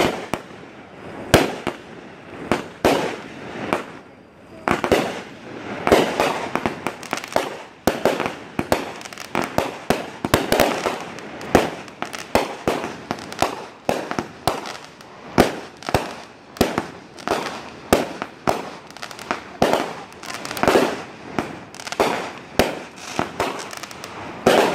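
Fireworks display: an irregular, rapid series of sharp bangs from launching and bursting shells, about two a second.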